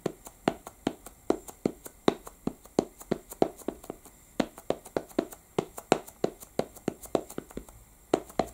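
An ink pad dabbed again and again onto a clear stamp mounted on an acrylic block, inking the stamp: a run of light, even taps, about two to three a second.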